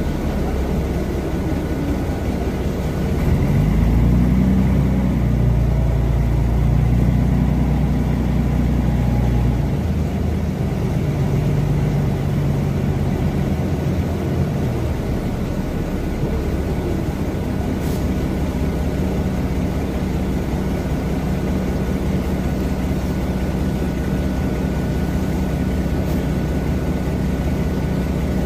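Mercedes-Benz O305 city bus's OM707 diesel engine heard from inside the passenger cabin. About three seconds in, the engine note rises and pulls loudly under acceleration for several seconds. It then drops back to a steadier, quieter run.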